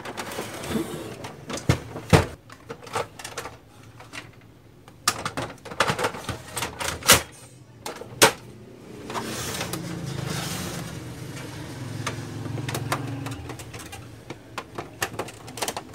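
HP LaserJet 1320 laser printer being set down and handled, with sharp plastic knocks and clicks, then its internal motors running steadily for a few seconds as it powers up after the pickup roller repair, followed by a few more clicks.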